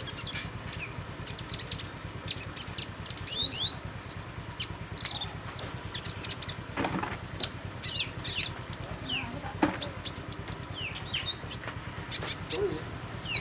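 Van Hasselt's sunbird (kolibri ninja) calling in rapid, high-pitched chirps and short down-slurred twitters. Two brief noises break in, about seven and nine and a half seconds in.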